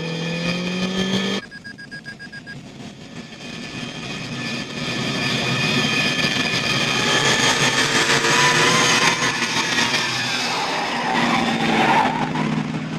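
Car engine revving and tyres squealing as a car speeds by, the sound building up over several seconds and staying loud, with an engine note rising in pitch in the opening second or so.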